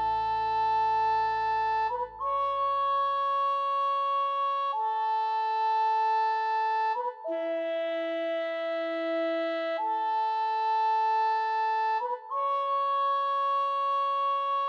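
Instrumental music: a reedy, clarinet-like synthesized tone plays held two- and three-note chords, each lasting about two and a half seconds, with a brief gap about every five seconds. A low bass note fades away in the first few seconds.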